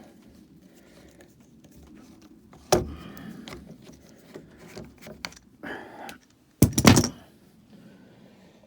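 Wood and tool handling at a roof truss: a sharp knock about three seconds in, light scraping and rustling, then a quick cluster of loud knocks near the seven-second mark.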